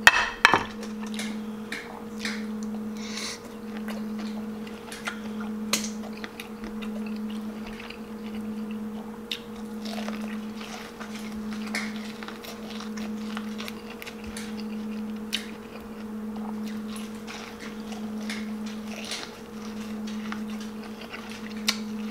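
Close-miked mouth sounds of a person chewing and biting into shrimp dipped in garlic butter sauce, with scattered short clicks. Under them runs a steady low hum that swells and fades every second or so.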